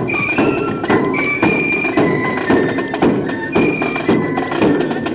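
Marching flute band playing a march: flutes carry a high melody over a bass drum and side drums beating about twice a second.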